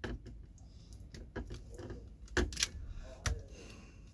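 Hand tools and small metal parts clicking and knocking against each other during a steering column tear-down: a handful of sharp, irregular clicks, the loudest about two and a half and three and a half seconds in.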